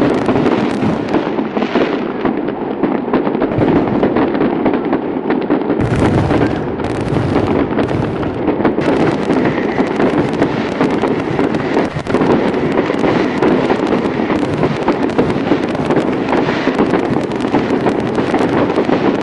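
A dense, continuous fireworks barrage: rapid overlapping crackles and bangs with no gaps, and deeper booms filling in about six seconds in.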